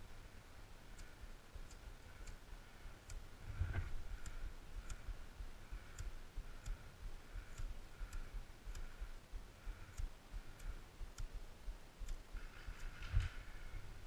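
Faint, regular clicks, about one every 0.6 seconds, over a quiet background. There is a low thump of handling noise about four seconds in and another near the end.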